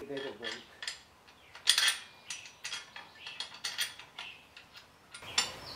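Steel parts of a front-wheel motorcycle hitch carrier clinking and knocking together as the handle arm is fitted to the frame: a string of light, uneven metal clinks, loudest about two seconds in.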